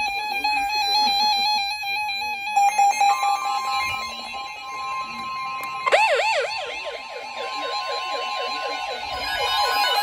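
NOAA weather alert radios alarming for a Severe Thunderstorm Warning. A steady alert tone sounds, a second steady tone joins about three seconds in, and about six seconds in a loud warbling electronic siren starts, rising and falling about three times a second.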